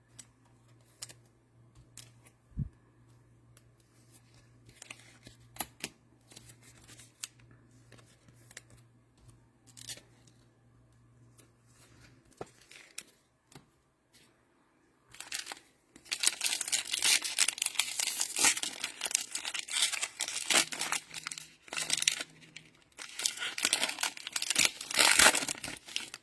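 Scattered light clicks and taps of trading cards being handled, then, a little over halfway through, a long stretch of crinkling and tearing as the cellophane wrapper of a football card cello pack is torn open.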